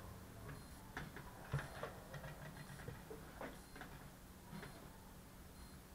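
Faint light ticking, about once a second, with a few louder irregular clicks and a low steady hum underneath.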